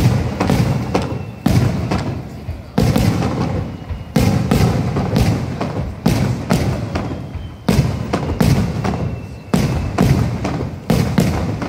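Aerial firework shells bursting in quick succession, about one bang a second. Each sharp bang trails off before the next.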